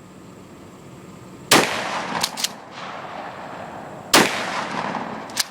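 Two shots from a Remington 870 12-gauge pump-action shotgun firing slugs, about two and a half seconds apart, each a sharp report with a long fading tail. After each shot comes a quick double clack of the slide being pumped back and forward to chamber the next shell.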